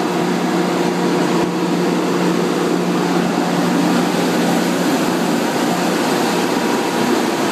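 Hydraulic power unit for a sawmill's shotgun carriage feed running: its large electric motor and pump give a loud, steady hum and whir.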